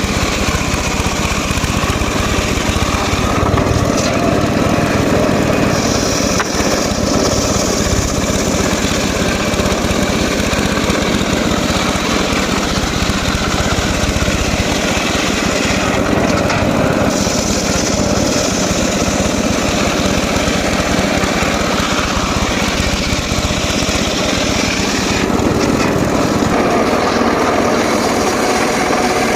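Engine-driven homemade circular saw running continuously while its blade saws through teak wood. A higher, brighter edge comes into the sound twice as the cut changes.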